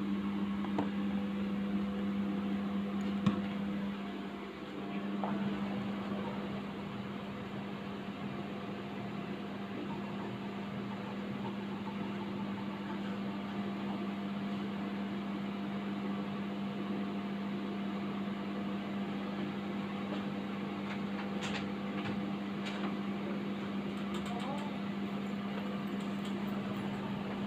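A steady low mechanical hum, like a fan or blower motor, with a faint knock about three seconds in and a few light clicks near the end.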